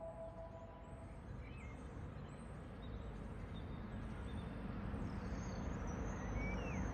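Outdoor ambience: a low, steady rumble of background noise that grows a little louder toward the end, with small birds chirping faintly and repeatedly.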